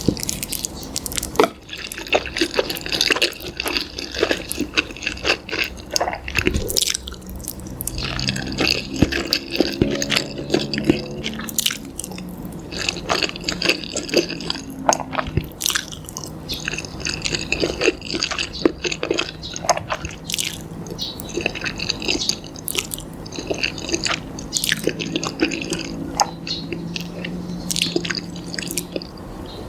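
White slime being squeezed and poked by hand, making many quick wet clicks and squelches.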